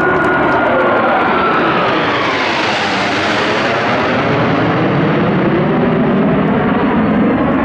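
Blue Angels legacy F/A-18 Hornet jets passing low overhead in formation. The jet roar builds to a peak about three seconds in, with the pitch falling as they pass, then settles into a deeper rumble as they move away.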